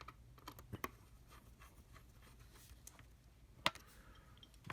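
Faint, scattered light clicks and taps, with one sharper click about three and a half seconds in: small laptop screws and parts being handled and set down during reassembly.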